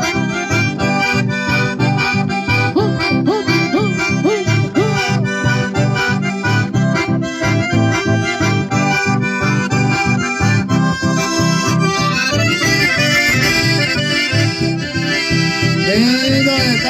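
Live folk music led by a button accordion, with acoustic guitars strumming a steady rhythm underneath.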